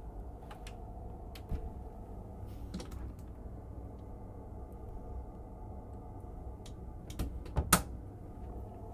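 Steady low hum with scattered light clicks and taps, and a sharper knock a little before the end as a hand goes to a wooden wardrobe door.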